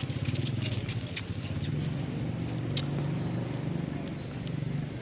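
A steady low engine hum, like a motor running at low revs, with a few faint clicks.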